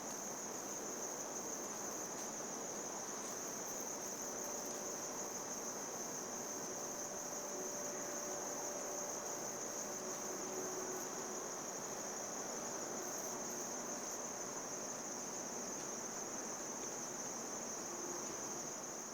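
Steady chorus of crickets: a continuous high-pitched trill that holds even throughout, over a soft background hiss.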